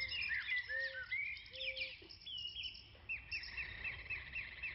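Outdoor birdsong: several birds chirping and calling, with three short low notes in the first two seconds and a quick run of repeated chirps, about five a second, from about three seconds in.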